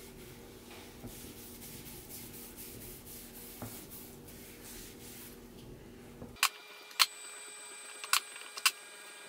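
A sponge pad rubbing finish over the face of an end-grain wooden cutting board: faint scrubbing strokes over a low hum. About six seconds in the sound changes abruptly and four sharp clicks follow, each under a second or so apart.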